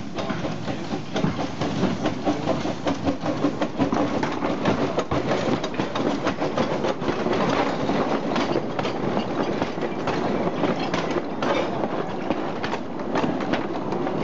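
Narrow-gauge steam train passing close by, its wheels clicking and clattering over the rail joints and the wagons rattling, getting louder about a second in as it approaches.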